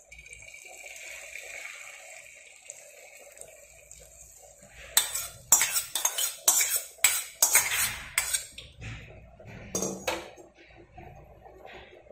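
Beaten egg sizzling as it is poured onto a hot oiled iron tawa. From about five seconds in, a steel spoon scrapes and clinks against a steel bowl and the pan in quick strokes, ending near the ten-second mark.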